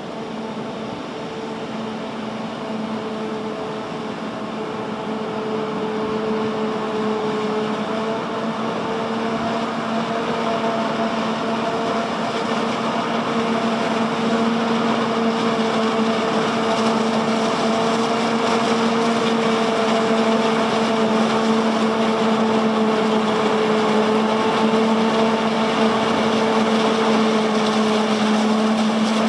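Claas Jaguar 970 self-propelled forage harvester with an Orbis 750 header chopping standing maize and blowing it into a tractor-drawn trailer running alongside: a steady, even-pitched machine hum that grows steadily louder as the machines approach.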